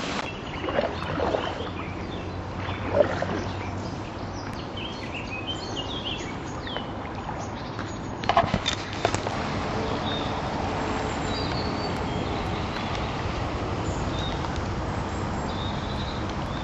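Paddling an inflatable kayak: a steady rushing noise with a few knocks and splashes, the loudest about three seconds in and again about eight seconds in. Small birds chirp briefly in between.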